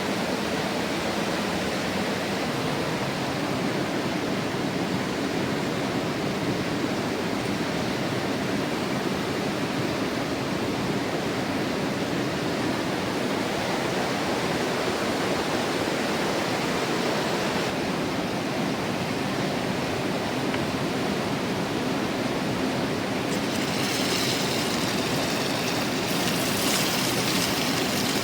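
Mountain river flowing with a steady rush of water. Near the end a brighter hiss joins it.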